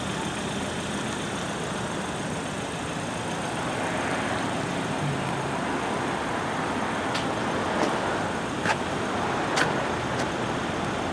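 Steady traffic noise, with a few faint short clicks in the second half.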